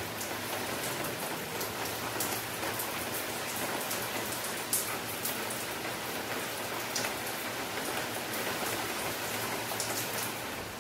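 Steady rain falling: an even hiss with a few sharper ticks scattered through.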